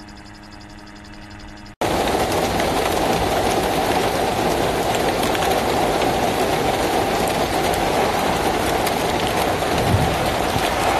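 Heavy hail and rain pelting down on open sandy ground: a loud, dense, even hiss crackling with countless small hailstone hits. It starts abruptly about two seconds in, after a quieter steady hum.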